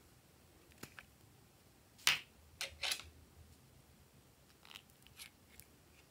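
Small plastic slime containers being handled and opened: a series of sharp clicks and snaps, loudest about two to three seconds in, then a few lighter clicks as a metal spatula works in a small jar.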